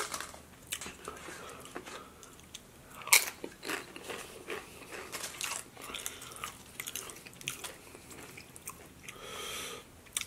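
Close-miked eating: crunching on tortilla chips and chewing a mouthful of burrito bowl, with irregular crisp crunches, the loudest about three seconds in.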